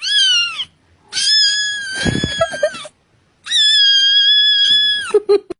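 Cat meowing three times: a short falling meow, then two long drawn-out meows, the last dropping in pitch at its end.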